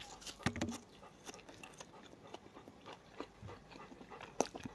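A bite into a stalk of green onion, then quiet chewing with scattered faint crunches and mouth clicks.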